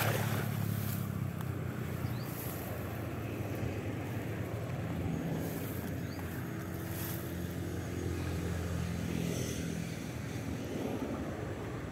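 A small engine running steadily, a low hum, with a few faint clicks over it.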